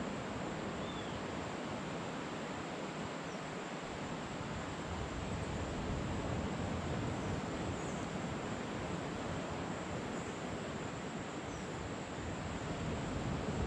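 Steady rushing outdoor background noise, with a faint steady high tone and a few faint short chirps.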